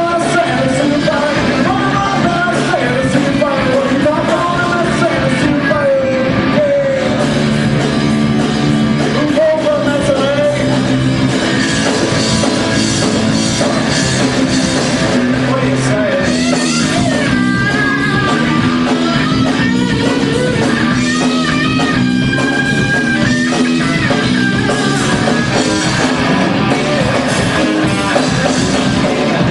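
Rock music with a singing voice and guitar, loud and continuous.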